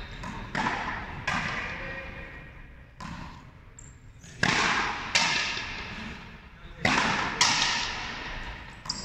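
Frontenis rally: the hard rubber ball struck by rackets and slamming off the frontón's front wall, about eight sharp cracks, often in pairs a little under a second apart. Each crack rings on in a long echo around the large enclosed court.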